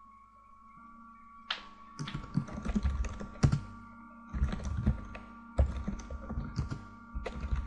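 Computer keyboard being typed on in quick runs of key clicks, starting about two seconds in, with short pauses between the runs.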